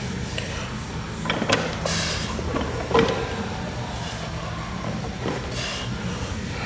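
A loaded steel barbell knocks twice as the lifter grips and settles over it, the louder knock about three seconds in with a slight ring. Near the end comes a short hiss of hands rubbing on leggings to wipe off sweat. A steady low hum runs underneath.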